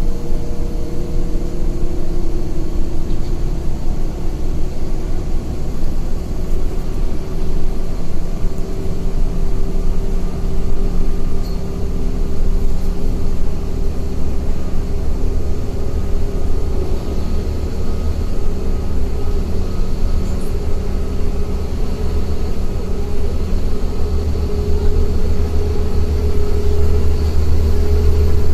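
Moving city bus heard from inside the passenger cabin: a steady low rumble of engine and road noise, with a faint whine that slowly rises in pitch. The rumble grows louder near the end.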